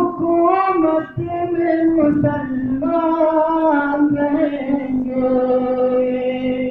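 A tarana being sung as a single melodic vocal line, the last phrase stretched into a long steady held note of about two seconds that cuts off at the end.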